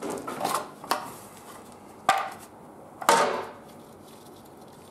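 Black plastic air cleaner cover on a Briggs & Stratton engine being unclipped and lifted off by gloved hands: a rustle, then a few sharp plastic clicks and knocks about a second apart, the last a short rattle.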